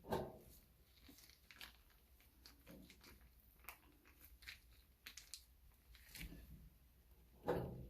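Faint hand-handling noises: scattered small clicks and crinkly rustles, with a soft knock right at the start and a louder one near the end.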